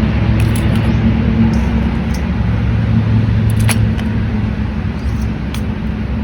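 A steady low mechanical hum, with a few sharp clicks as mantis shrimp are packed into a small pot.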